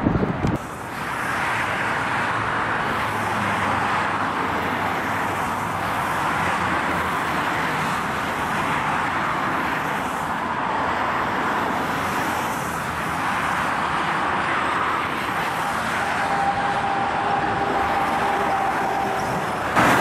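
Steady motorway traffic noise, mostly the tyre noise of passing vehicles, swelling and easing a little as they go by. A faint steady tone joins near the end.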